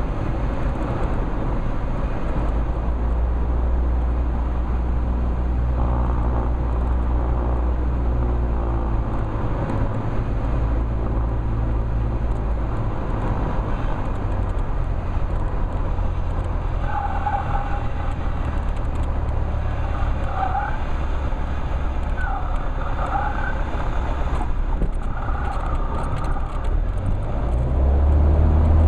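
Cessna 172's engine and propeller droning steadily at reduced power, heard from inside the cockpit during landing, with several short high tones coming and going in the second half. Near the end the engine comes up loudly to power for the takeoff of the touch-and-go.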